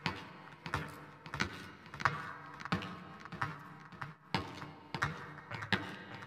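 Quiet clicks at an even pace, about three every two seconds, each with a brief ringing tone.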